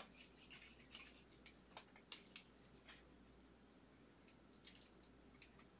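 Near silence, with a few faint clicks and rustles of trading cards and plastic sleeves being handled: a cluster about two seconds in and another near the end.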